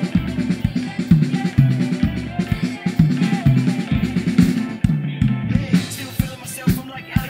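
Acoustic drum kit played by a young drummer over backing music with a repeating bass line, kick and snare hits through it. Near the end the drum and cymbal hits stand out more sharply.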